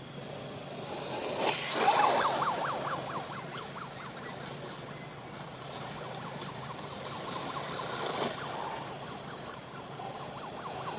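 Radio-controlled short course truck driving over grass, its motor whining up and down in quick repeated revs. The revving is loudest about two seconds in, then settles to a steadier run, and picks up again near the end.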